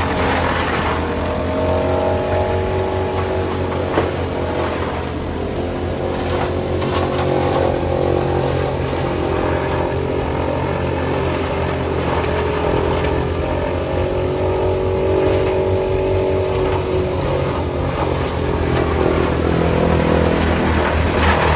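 1940s International silo filler running under tractor power from a Massey Harris, chopping corn stalks and blowing the chopped silage up its pipe into a wagon. A steady machine drone with a low engine hum and a whine that wavers slightly, and a single click about four seconds in.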